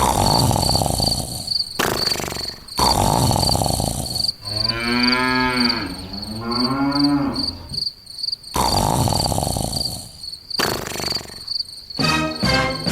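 A cow mooing once in a long call about halfway through, over steady, evenly repeating cricket chirps, with loud stretches of noise before and after the moo.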